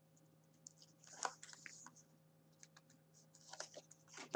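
Faint crinkly rustling and a few light clicks from paper and a peeled double-sided tape liner being handled by hand.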